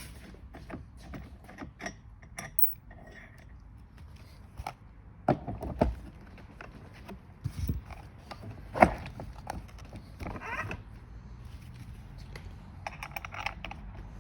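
Scattered clicks, knocks and metallic jingles of hands handling wheel parts and washers while fitting a wheel onto the axle of an electric ride-on toy Jeep; the loudest knock comes about nine seconds in.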